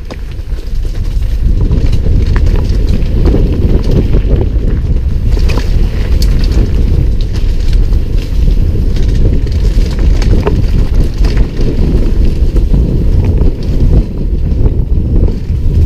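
Wind buffeting an action camera's microphone on a fast downhill mountain-bike descent: a loud low rumble that builds over the first second or so, with scattered clicks and knocks from the bike rattling over the bumpy dirt trail.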